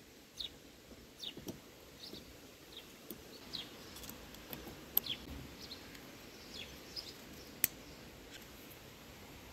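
Small metal clicks and taps from the parts of a brushcutter's centrifugal clutch (shoes, springs, bushing) being handled and fitted by hand. The sharpest two come about five and seven and a half seconds in. Birds chirp in the background throughout, short falling chirps.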